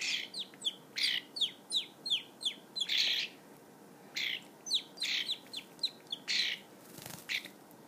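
Juvenile European starling calling: a quick run of short, falling chirps, about three a second, mixed with a few longer harsh rasping calls, with a brief pause about four seconds in.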